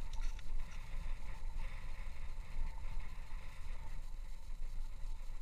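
Wind buffeting the microphone on open lake ice: an uneven low rumble with a light hiss, and a single short click at the very end.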